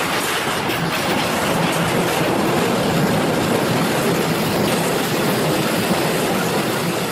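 Freight trains passing close by: container and car-carrier wagons rolling steadily on the rails, with an electric locomotive going past.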